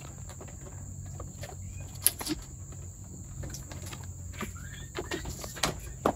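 Outdoor ambience with a steady high-pitched insect drone, scattered light knocks and rustles, and a few faint bird chirps.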